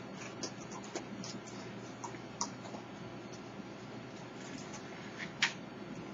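Raccoons eating dry dog food kibble from dishes: scattered crunches and clicks, the sharpest about five and a half seconds in, over a steady low hum.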